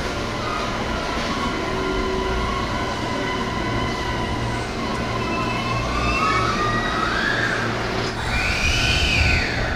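Hankyu Railway electric train at a station, its inverter-driven traction motors whining over a low rumble. The whine glides up in pitch over several seconds, then a higher tone arches up and back down near the end, as the motors change speed.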